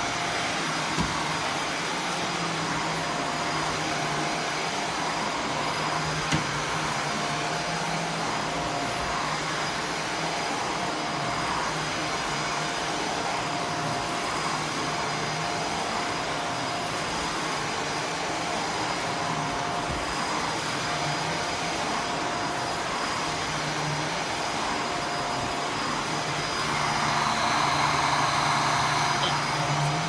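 Shark upright vacuum cleaner running steadily as it is pushed over carpet, its motor giving a constant whine. It grows louder for a couple of seconds near the end.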